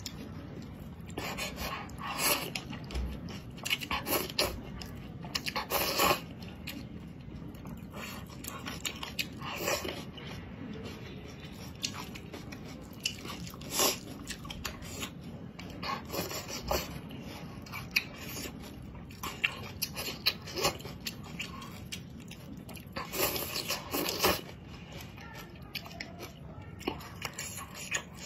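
Close-miked eating of spicy noodles: repeated slurps every few seconds between bouts of wet chewing.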